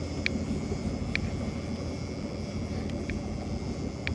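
Fishing boat's engine running steadily at trolling speed, a continuous low drone. A few short high ticks sound over it at irregular intervals.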